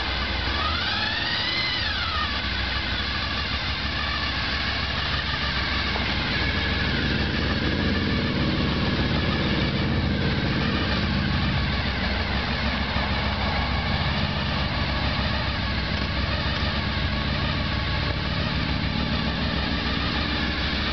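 A vehicle engine idling steadily, with a brief whistle-like tone that rises and falls about a second in.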